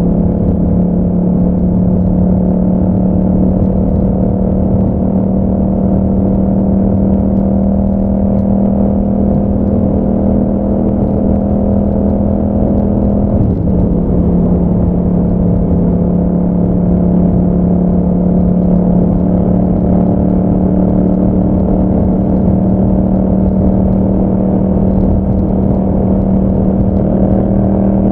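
Yamaha MT-07's 689 cc parallel-twin engine running through an Akrapovic exhaust while riding at a steady, held throttle. The note stays nearly constant, with a brief dip about halfway through before it settles again at a slightly higher pitch.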